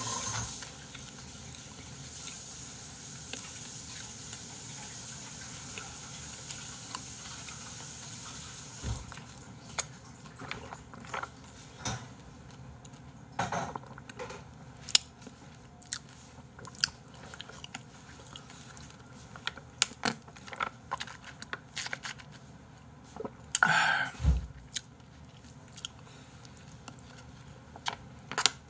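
A small plastic sachet being handled and squeezed, giving scattered crinkles and clicks, with one louder rustle and a low thump a few seconds before the end. A faint steady hiss fills the first eight seconds or so.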